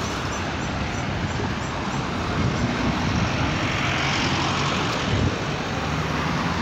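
Street traffic, with cars passing close by: a pickup truck drives past, its engine and tyres swelling around the middle, followed by a small hatchback.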